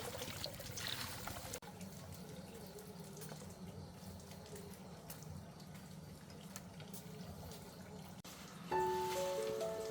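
Water running and splashing, with small drips and clicks, for the first second and a half. After a cut it gives way to a quieter, steady low hum. Music with a simple melody comes in loudly near the end.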